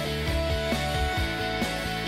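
Background music: held notes over a steady drum beat.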